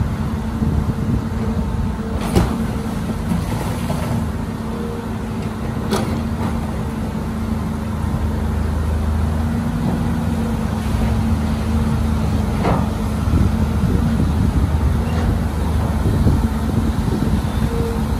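Diesel engine of heavy earth-moving equipment running steadily with a low rumble, and a few sharp knocks along the way.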